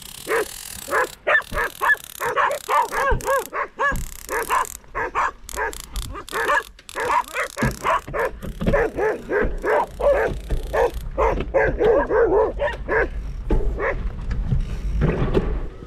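A pack of several guard dogs barking without pause, a fast run of overlapping barks and yips, as the dogs defend what they take for their territory. A low rumble sits under the barking from about halfway.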